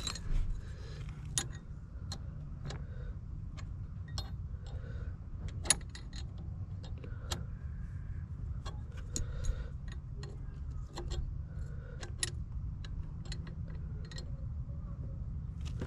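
Irregular small metal clicks and taps from hands fitting a grounding wire into a ground-rod clamp, over a steady low rumble. One sharper click stands out about halfway through.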